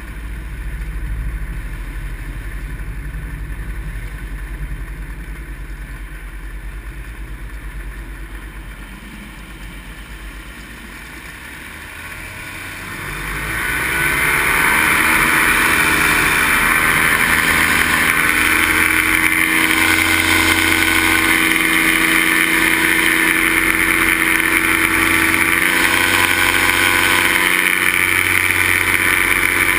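Paramotor's two-stroke engine and propeller, first at low throttle with a low rumble, then opened up about thirteen seconds in, its pitch rising and the sound growing much louder, and running steadily at high power from then on.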